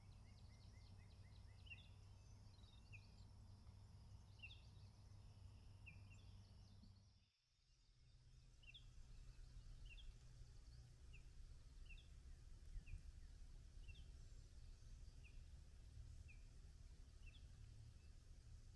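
Near silence: faint low rumble with short high chirps repeating about once a second. The sound cuts out completely for about half a second, about seven seconds in.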